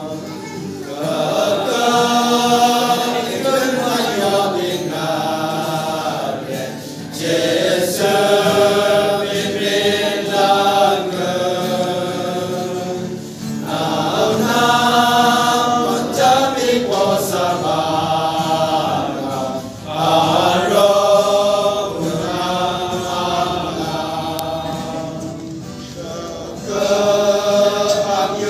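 A group of mostly male voices singing a hymn together, in long held phrases of about six seconds with short breaks between them.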